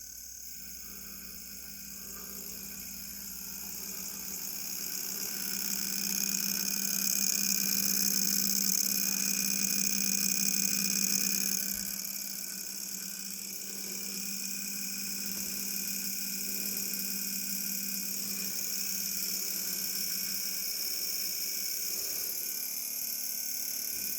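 Wine cooler running with a loud, steady hum and a high hiss; it swells for several seconds, then drops back suddenly about twelve seconds in and holds steady.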